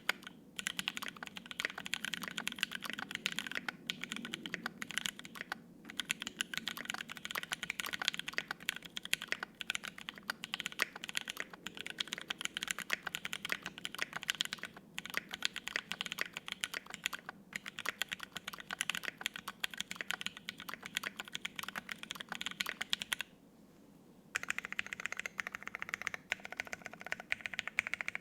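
Typing on a Think6.5 V2 gasket-mount 65% mechanical keyboard with lubed, filmed Penguin tactile switches on an FR-4 plate and GMK double-shot ABS keycaps: a fast, steady run of keystrokes, with one pause of about a second late on.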